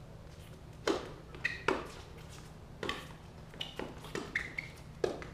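Tennis rally on a hard court: a ball struck back and forth with racquets and bouncing, about six sharp pings roughly a second apart, with a few short high squeaks between the hits.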